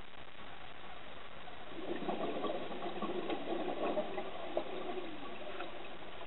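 Scuba diver's exhaled bubbles gurgling out of the regulator for about three seconds, starting about two seconds in, over a steady underwater hiss.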